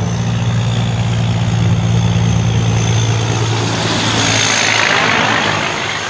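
Semi-trailer truck's diesel engine running with a steady low drone, and a rush of tyre and wind noise that swells about four seconds in as a truck and trailer pass close by.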